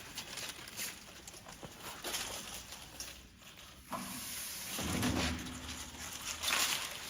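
Sanding belt slitting machine at work: a low motor hum that swells about five seconds in, with scattered clicks and rustling as the abrasive belt is handled and cut.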